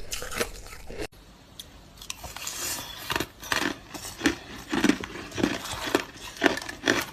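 Hard crushed ice being bitten and chewed close to the microphone: crisp crunches, a lull after about a second, then a steady run of about two crunches a second.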